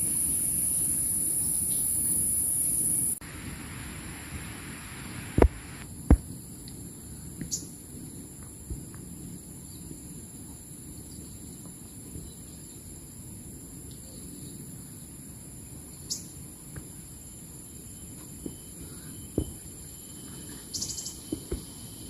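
Forest insects buzzing steadily at a high pitch; the loudest layer stops suddenly about three seconds in, leaving a fainter insect drone. Scattered crunches of footsteps on the dry-leaf trail, two of them sharper a few seconds after the drone drops.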